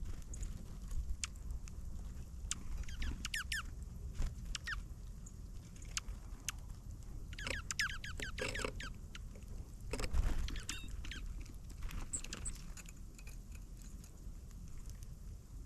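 Wild birds chirping: short, quick calls in clusters, busiest a little past the middle, with scattered light clicks over a steady low rumble.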